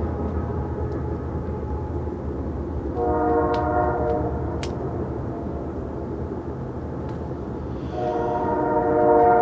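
Distant freight train's air horn sounding twice, a steady multi-note chord: a blast of about a second and a half some three seconds in, and a longer, louder one starting near the end, over a steady low rumble.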